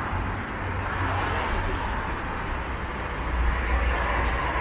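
Street traffic noise: a steady hiss of passing vehicles with a low engine rumble that grows louder about three seconds in.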